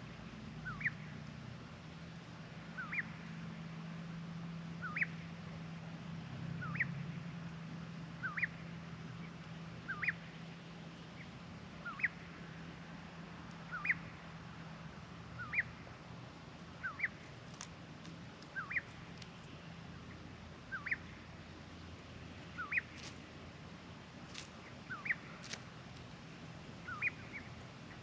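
A bird calling over and over: pairs of short, rising chirps about every two seconds, over a steady low hum, with a few sharp clicks in the second half.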